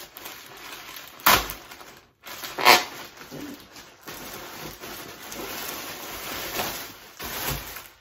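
Plastic mailer bag crinkling as it is handled and torn open, with two sharp, loud rips about a second and a half apart near the start.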